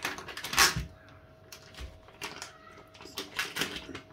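Feta cheese packaging being wrestled open by hand: a sharp crackle and knock about half a second in, then scattered small clicks and rustles of the pack being handled.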